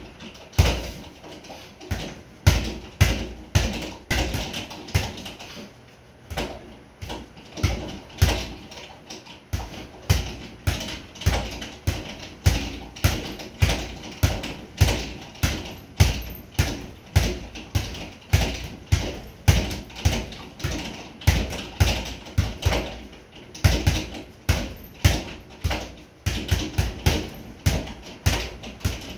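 Boxing gloves repeatedly punching a sideways double-end bag (kangaroo bag): a steady stream of sharp thuds, often in quick combinations of two or three, with brief lighter spells between.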